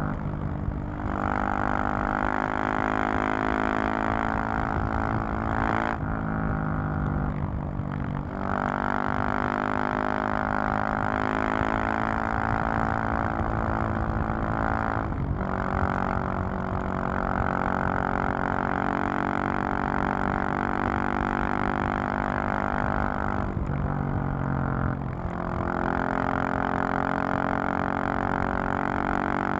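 KTM 690 SMC-R's single-cylinder engine and exhaust running under way at fairly steady revs, with the throttle closed and reopened three times, about six, fifteen and twenty-four seconds in.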